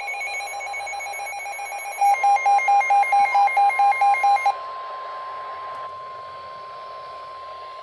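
Weather radio emergency alert tones for a severe thunderstorm warning. A steady electronic tone gives way about two seconds in to loud, rapid beeping, about four beeps a second, over a steady warning alarm tone. The beeping stops about halfway through, and the alarm tone carries on alone until the end.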